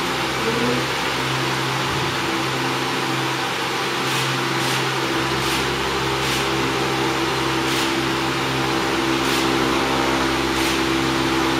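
Large floor fan running with a steady whir and hum. About seven short, sharp clicks come at uneven spacing from about four seconds in, as a camera shoots.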